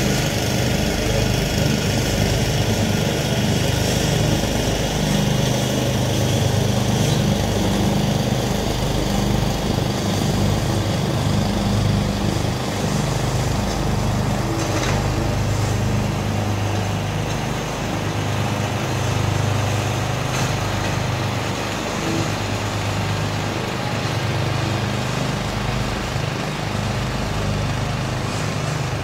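The small gasoline engines of a Craftsman 12.5 hp lawn tractor and a 13.5 hp Swisher 60-inch tow-behind mower running steadily under load while mowing long grass. The sound grows slightly fainter in the second half.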